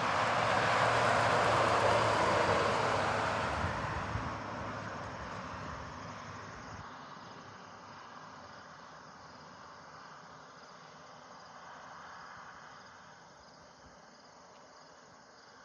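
A car passing on a highway. Its tyre and engine noise is loudest in the first couple of seconds and fades away over the next several. After it, faint steady insect chirring, like crickets, is left.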